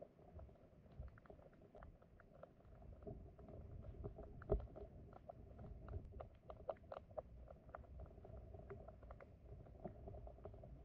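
Faint underwater sound of a flowing stream: a low rumble of moving water with many small scattered clicks and ticks, and one louder knock about four and a half seconds in.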